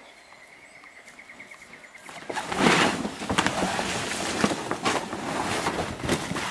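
A tarpaulin being dragged off a large wooden sculpture, rustling and crackling loudly from about two seconds in. Before that, a faint high steady whistle breaks into a rapid trill.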